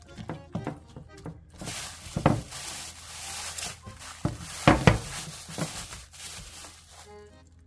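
Kitchen work: a steady hiss lasting about five seconds, with several sharp knocks of utensils or pots, over background music.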